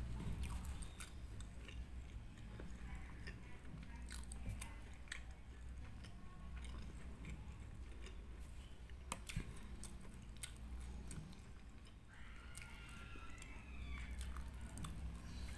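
Close-miked chewing and mouth sounds of a person finishing kimbap: scattered soft wet clicks and lip smacks over a low steady hum, with a short wavering higher-pitched sound about twelve seconds in.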